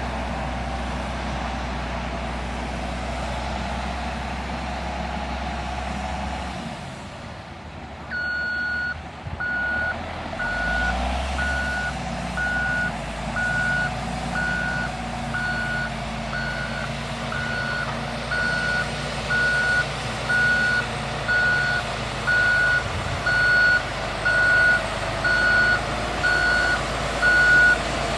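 Heavy construction vehicle's diesel engine running, then its reversing alarm starting about a third of the way in, beeping about once a second and getting louder as the vehicle backs up.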